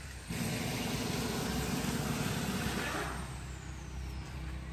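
A motor vehicle engine running steadily, with a louder rush of noise from just after the start until about three seconds in, then a faint falling whistle near the end.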